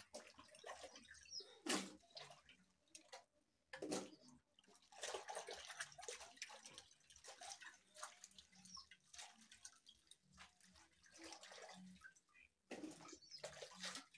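Water sloshing and splashing in a metal basin as peeled matoke (green cooking bananas) are washed by hand, faint and irregular, with a few louder splashes.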